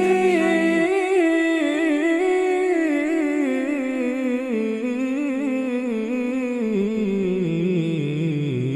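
Wordless humming in an Arabic nasheed: a wavering, ornamented vocal line that slowly slides down in pitch, over a lower held voice that drops out about a second in.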